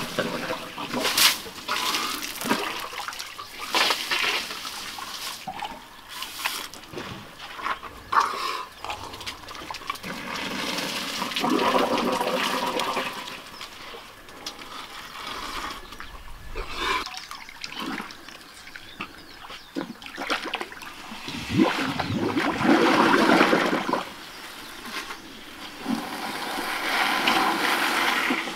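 African elephants drinking from a swimming pool: water drawn up the trunks and emptied into their mouths, with splashing and dribbling in several bursts of a few seconds, the loudest about three-quarters of the way through.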